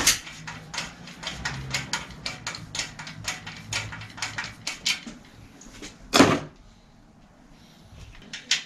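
Ratchet of a 10 mm socket wrench clicking at about four clicks a second as it works the rear axle's chain tensioner on a bicycle in a repair stand. About six seconds in there is a single loud knock, then a few more clicks near the end.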